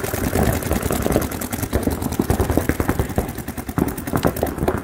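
Paintball markers firing rapidly in overlapping volleys, a fast run of sharp pops many times a second over a steady low rumble.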